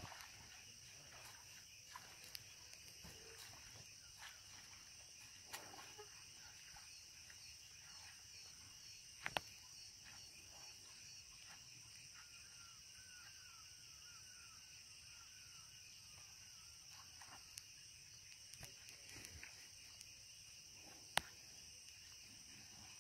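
Near silence with a faint, steady, high-pitched insect drone. A run of short rising chirps comes about halfway through. Two sharp clicks stand out, one about nine seconds in and one near the end.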